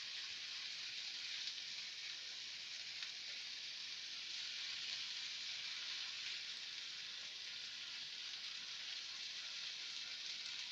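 Ground beef, diced potatoes and onion frying in a nonstick pan: a steady sizzle.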